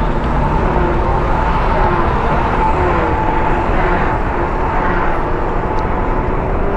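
Steady vehicle and road noise: a dense rumble with a faint, slightly wavering engine hum running through it.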